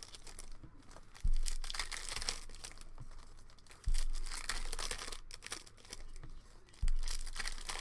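Foil wrappers of 2020 Bowman Chrome card packs crinkling and tearing as they are opened by hand. Three dull thumps are the loudest moments.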